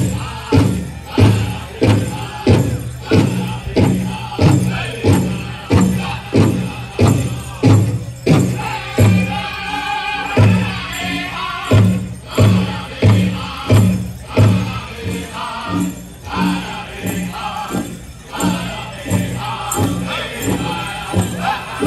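Powwow drum group singing in chorus over a large shared drum struck in an even beat, about two to three strokes a second, with bells jingling; the drumbeat eases off for a few seconds near the middle.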